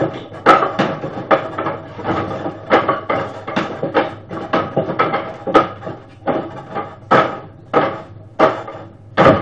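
Hands and forearms striking the wooden arms and post of a homemade wooden dummy (mook jong): a quick, irregular run of sharp wooden knocks, about two a second, each with a brief ring.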